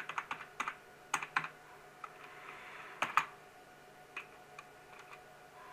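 Typing on a computer keyboard: a quick run of keystrokes in the first second and a half, then a few single key presses spread through the rest.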